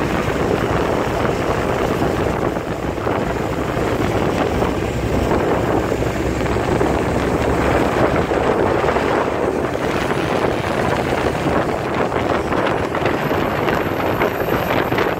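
Wind buffeting the microphone over the steady running of a parasail tow boat's engine and the churning of its wake.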